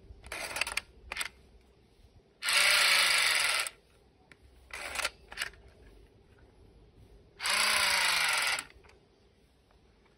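Toy AK-47 gun firing its sound effect twice as the trigger is pulled: two bursts, each a bit over a second long, with plastic clicks from handling before and between them.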